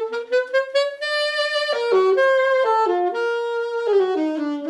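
Selmer Mark VII alto saxophone played solo: a quick rising run of short notes climbs to a long high note about a second in, then a slower falling phrase of held notes.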